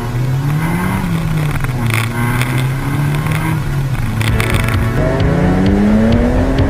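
Drift car engine revving up and down as the car slides. About five seconds in, it cuts to a BMW E36 M3's engine climbing steadily in pitch as it accelerates away.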